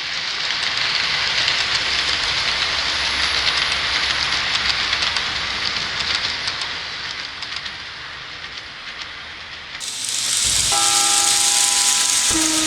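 Dubbed recording of a real train running, a steady rushing rail noise that fades away. About ten seconds in, a train horn sounds a multi-tone chord, ending on a lower note.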